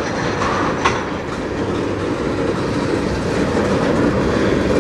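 Freight train of loaded tank cars rolling slowly past: a steady rumble of steel wheels on rail, with a sharp click a little under a second in.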